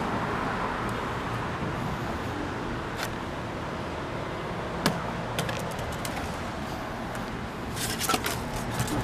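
Steady outdoor hum of road traffic, with a few sharp clicks about three and five seconds in and a brief burst of clicks and rustling near the end.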